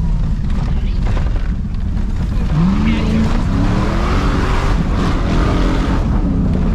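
Chevy pickup truck's engine revving while the truck is driven off-road along a rough trail, heard over a heavy low rumble. The engine note rises about two and a half seconds in, climbs higher for a couple of seconds, then drops back near the end.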